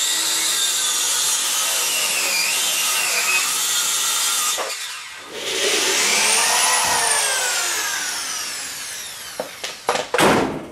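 Power saw cutting through MDF board in two runs, with a short break about five seconds in; the blade's pitch rises and falls during the second run. A few sharp knocks near the end.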